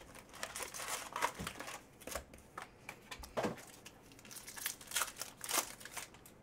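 Foil wrappers of Upper Deck Artifacts hockey card packs crinkling and rustling in irregular bursts as the packs are opened and the cards handled.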